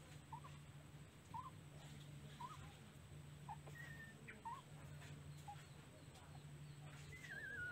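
Faint short squeaks about once a second from newborn puppies nursing, with a longer whine near the end that falls and wavers in pitch, over a faint low hum that breaks off now and then.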